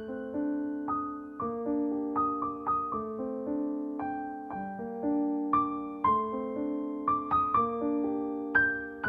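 Background music: a soft piano or electric-piano piece, single notes struck one after another over held lower notes, each note fading away.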